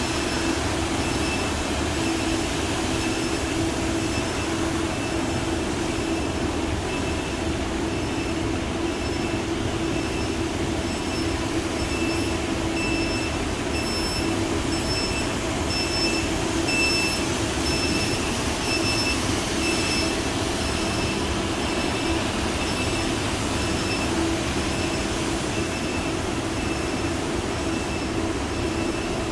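Ride-on wet floor scrubber running steadily, its motors and brushes making a continuous mechanical drone with a steady hum. Through the middle a high-pitched tone pulses on and off about twice a second.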